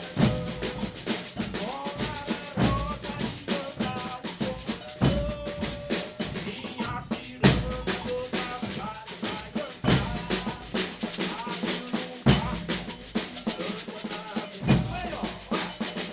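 Brazilian percussion ensemble of drums playing together in a dense, driving rhythm, with heavy bass-drum accents about every two and a half seconds.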